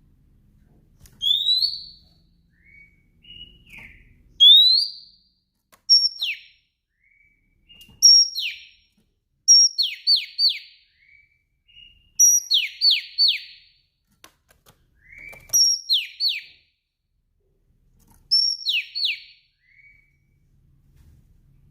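Female Oriental magpie-robin (kacer) calling: short rising whistles and quick downward-sweeping notes, often in twos and threes, with brief high notes, repeated every couple of seconds.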